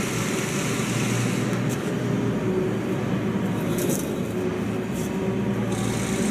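Steady mechanical running noise with a low hum, and a few brief clicks over it.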